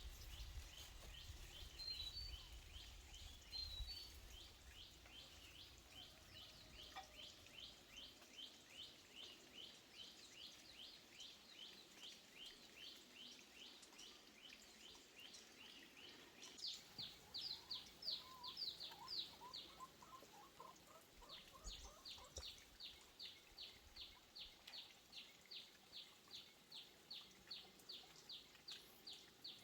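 Faint chirping in a steady, even rhythm of short high chirps, about two a second, that pauses briefly a little after halfway. A lower run of chirps joins in around the middle.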